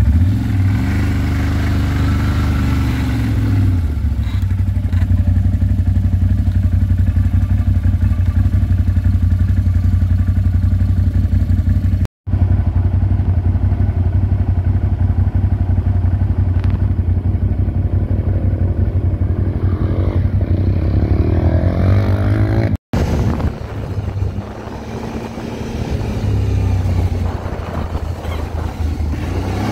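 ATV engine running steadily under way. It revs up and down in the first few seconds and again a little before the end, and the sound cuts out for an instant twice.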